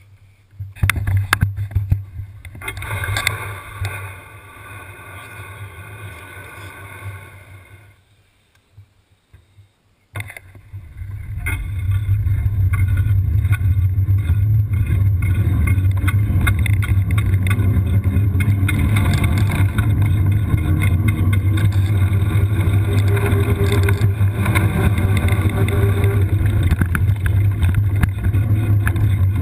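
All-terrain wheelchair rolling down a rough trail: a loud, steady low rumble of wheels and frame vibration sets in about ten seconds in after a brief quiet, with a faint drone above it that slowly rises in pitch.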